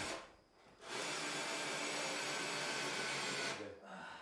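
Power drill running under load as a screw is driven into the overhead timber: it cuts out just after the start, starts again about a second in, runs steadily, then stops about three and a half seconds in.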